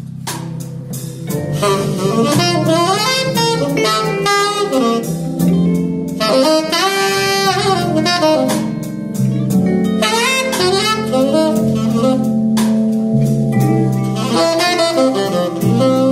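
Saxophone playing a jazzy lead melody with sliding notes, over a live band of keyboard, electric guitar and drums keeping a steady beat.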